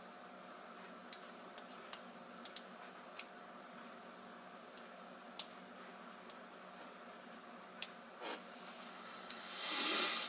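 Lock pick working the pins of a pinned practice lock cylinder: about ten sharp, irregular metallic clicks as pins are set. Near the end comes a longer, louder scraping rattle as the plug turns and the cylinder opens.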